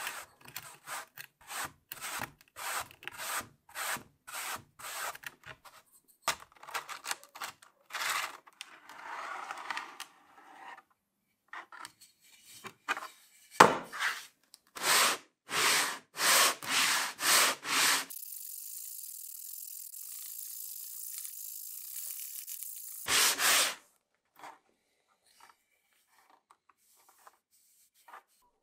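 A hand tool worked back and forth over wood, scraping it down in quick strokes of about two a second, then a few louder strokes. About two-thirds of the way in comes a steady high hiss lasting some five seconds, and the last few seconds are nearly silent apart from faint ticks.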